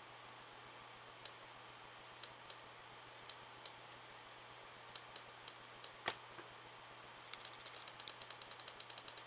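Faint clicking of a computer mouse's scroll wheel as a web page is scrolled: scattered single notches, one louder click about six seconds in, then a fast even run of about seven clicks a second near the end.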